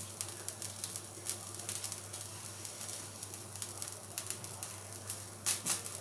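Faint crackling and ticking from an empty nonstick kadai with traces of oil heating over a gas flame, a little busier near the end, over a steady low hum.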